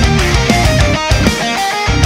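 Heavy rock music led by electric guitar, its notes bending in pitch over a steady beat.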